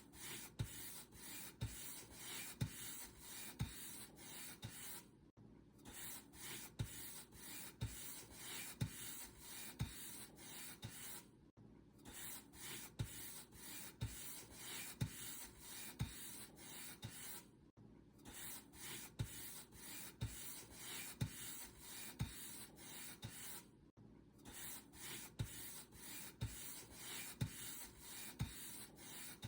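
Paint brush bristles stroking back and forth across a surface, about two strokes a second, with a short pause roughly every six seconds.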